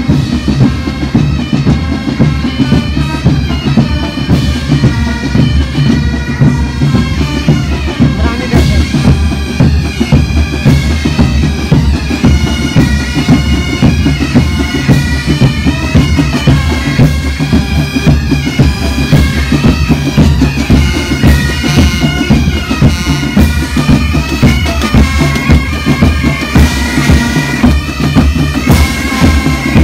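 Pipe band playing a march: bagpipe melody over its steady drones, with drums beating time.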